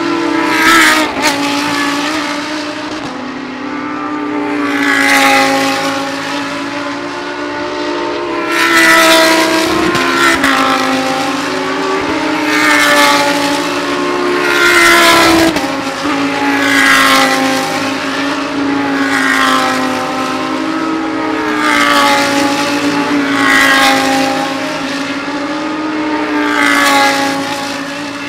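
Lamborghini Huracán GT3 race cars' 5.2-litre V10 engines at racing speed, loud, their pitch rising and falling as they accelerate and lift. The sound swells and fades again every two to three seconds as cars pass.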